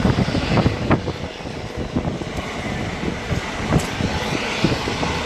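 Rumbling outdoor noise on a handheld phone's microphone, with irregular low thumps and a few sharp knocks, strongest in the first second.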